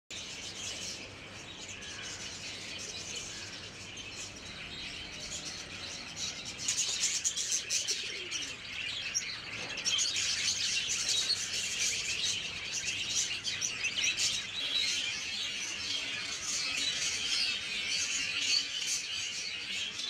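A flock of budgerigars chirping and chattering without pause, a busy high twittering that grows louder about six seconds in.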